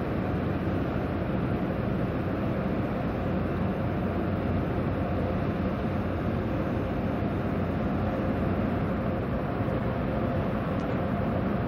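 Steady low rumble of ships' diesel engines in a harbour, with a faint constant hum running through it.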